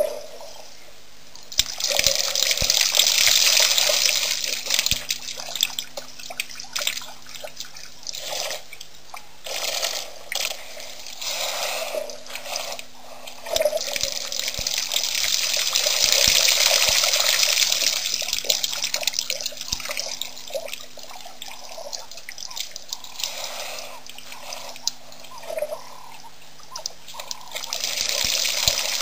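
Elephant drinking at a waterhole: water splashing and pouring off its trunk in several long swells of a few seconds, with drips and small splashes in between.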